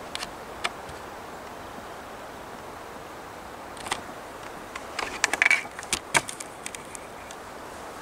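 Handling noise from a handheld camera: scattered sharp clicks and short rustles over a steady background hiss, with a burst of them about five to six seconds in.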